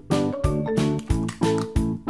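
Upbeat background music with a steady beat and bright keyboard-like notes.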